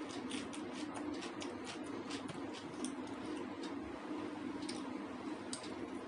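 Close-miked chewing of rice and paneer curry: wet mouth clicks, about four a second for the first few seconds, then a few scattered ones, over a steady low hum.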